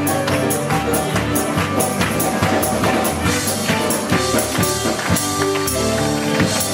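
Band music with a steady, quick percussion beat over held instrument notes.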